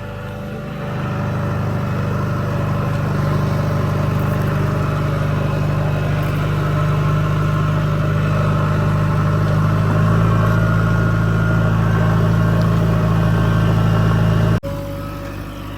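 Diesel engine of a JCB 3DX backhoe loader running steadily under load, its level rising about a second in. About a second before the end the sound jumps abruptly to a different, quieter engine note.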